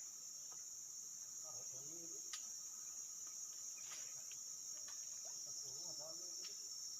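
Steady, high-pitched chorus of crickets or similar insects droning without a break, with faint distant voices twice.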